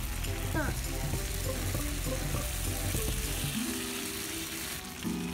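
Okonomiyaki sizzling on a hot iron teppan griddle, a steady frying hiss, with background music playing over it.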